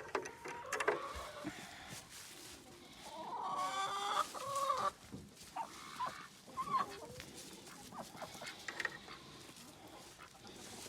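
Chickens clucking in short scattered calls, with one longer drawn-out call from about three to five seconds in.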